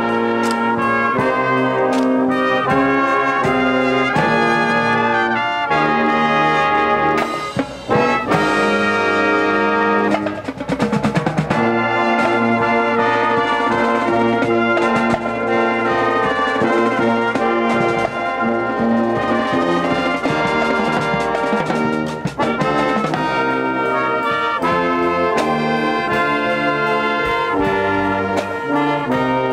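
Brass band music with trumpets and trombones, playing continuously with steady loudness and a brief dip about seven seconds in.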